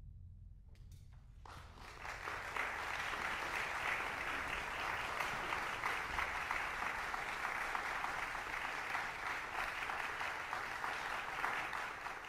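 Audience applauding at the end of a wind band performance, starting about a second and a half in as the band's last low note dies away.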